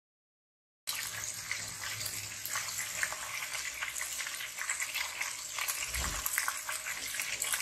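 Hot oil sizzling and crackling in a wok where kofta meatballs are shallow-frying. Silent for the first second, then a steady sizzle with a soft low thump about six seconds in.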